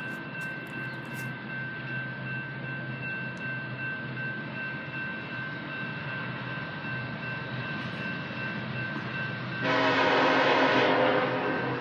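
Steady low rumble, then about ten seconds in one blast of the air horn on the approaching coal train's lead locomotive, a BNSF SD70ACe, lasting about a second and a half.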